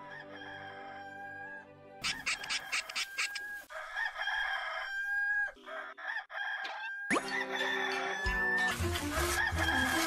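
Hollywood Edge "Bird Rooster 2 Crow" stock sound effect: a rooster crowing, heard several times in a row with cartoon music underneath.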